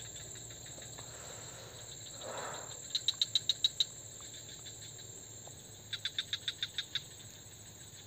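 Swamp insects calling: rapid chirps, about ten a second, in short trains that come every few seconds, over a faint steady high drone. A brief soft noise sounds about two and a half seconds in.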